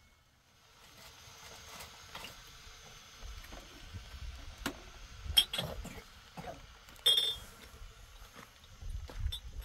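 Scattered knocks and clatter with two short, ringing metallic clinks, about two seconds apart, over a low rumble.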